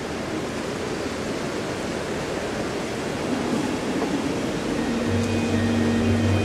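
Dense, even murmur of a large congregation exchanging the sign of peace in a church. About five seconds in, steady held notes of a sustained chord come in beneath it.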